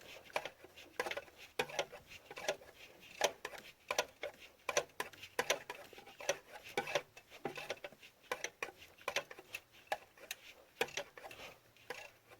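Ratchet wrench with a deep-well socket clicking in short, irregular strokes as a bolt is run down and tightened.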